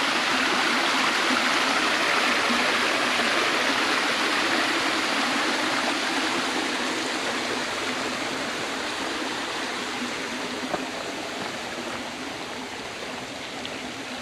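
A small woodland stream running over rocks, a steady rushing that slowly fades.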